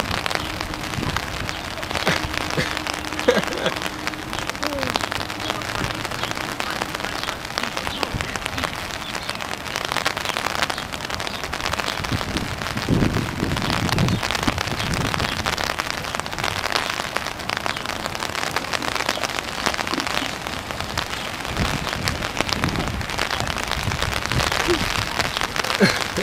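Steady rain falling on standing floodwater and wet grass, with feet splashing through the shallow water now and then, most clearly about halfway through and near the end.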